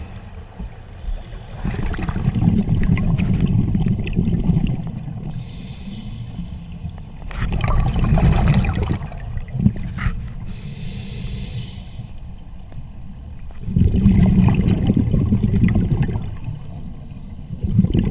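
Scuba diver breathing underwater through a demand regulator: three slow breaths, each a hissing inhale and a long low rumble of exhaled bubbles.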